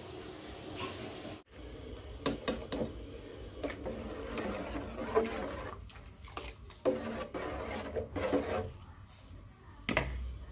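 Metal ladle stirring curry in a large metal cooking pot, scraping and knocking against the pot's side several times.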